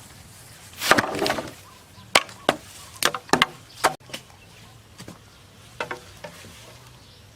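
A blade chopping bamboo: a longer drawn-out stroke about a second in, then about six sharp, quick strikes between two and four seconds, and a few fainter strikes near six seconds.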